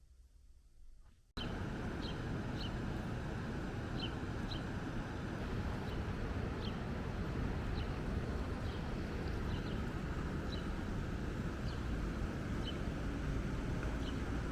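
Steady rushing outdoor background noise that cuts in suddenly about a second and a half in, with short high bird chirps every second or so.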